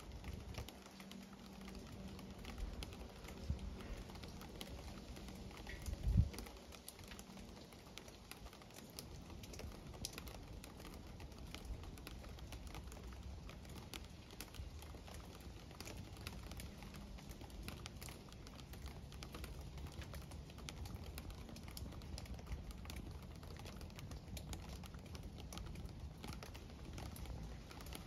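Quiet outdoor background: a faint low rumble with scattered light ticks and taps, and one louder thump about six seconds in.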